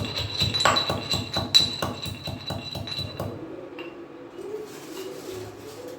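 A steel utensil striking a metal kitchen vessel over and over, about five quick ringing clinks a second, stopping about three seconds in. After that a pigeon coos softly.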